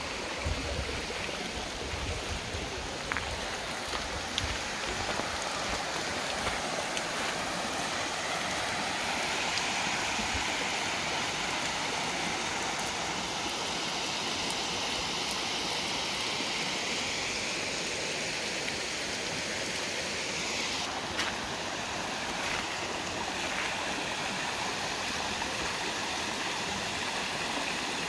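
Mountain stream rushing steadily over stones, with some low rumble in the first few seconds.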